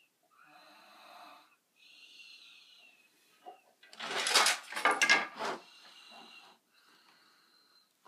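Snoring: soft wheezy breaths, then a much louder snore about four seconds in that lasts over a second, followed by quieter breathing.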